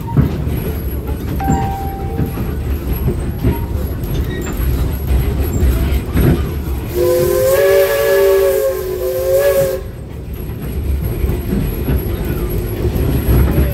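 The 15-ton 0-4-0 steam locomotive's whistle blows for about three seconds, a chord of several tones over a rush of steam hiss, above the steady low rumble of the train running along the track.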